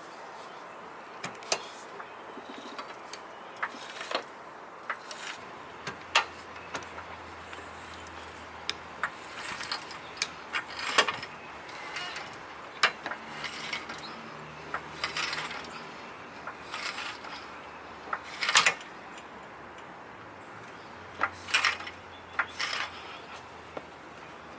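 Scattered metallic clicks, clinks and rattles of hardware being handled, some sharp and loud, over a faint low hum that comes and goes.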